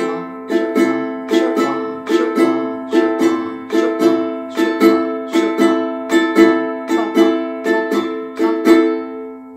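Ukulele strumming an A minor chord in a swung cowboy strum, the down strokes long and the ups short, in a steady galloping long-short rhythm. The last strum rings out and fades near the end.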